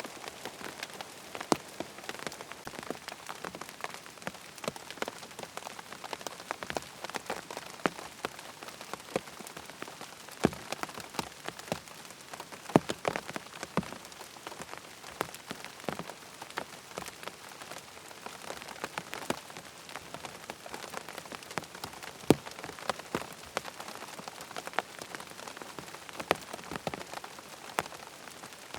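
Rain falling on a tent: a steady patter with many separate drops striking sharply and irregularly.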